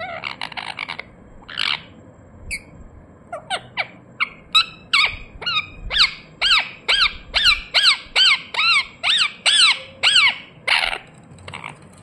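Indian ringneck parakeet calling: a couple of harsh squawks at first, then a fast, even run of short chirps, about three a second, each quickly rising and falling in pitch, ending with another harsh squawk near the end.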